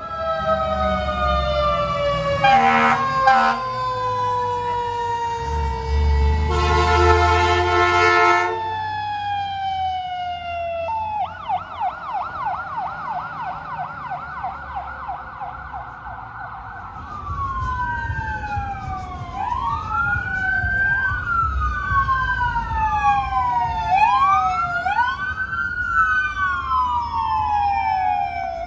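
Emergency vehicles passing one after another with sirens on: first a fire truck's siren winding slowly down, broken by two long air-horn blasts; then a fast yelp siren; then two wail sirens rising and falling out of step, over the rumble of truck engines.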